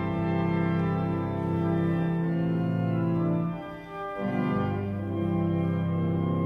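Church pipe organ playing sustained chords that shift from one to the next, with a short break between phrases about four seconds in.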